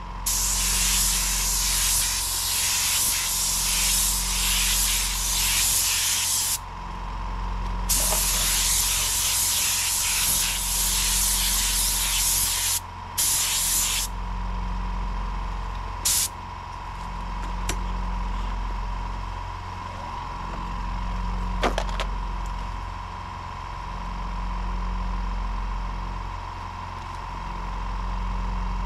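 Paint spray gun hissing as clear coat is sprayed: two long passes of about six and five seconds, then two short bursts around halfway. Beneath it a steady low machine hum with a slow rise and fall continues once the spraying stops.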